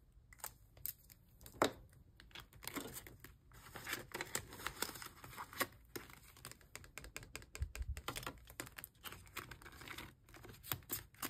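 Clear plastic envelope in an A6 budget binder rustling and crinkling as it is opened and a card is handled over it, with scattered light clicks and taps, the sharpest about a second and a half in.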